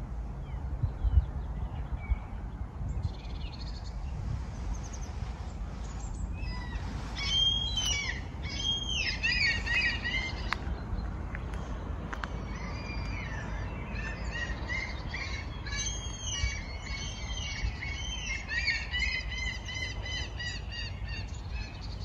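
Small songbirds singing outdoors in quick, repeated chirping phrases. The song starts about six seconds in and grows busier through the second half, over a low steady rumble.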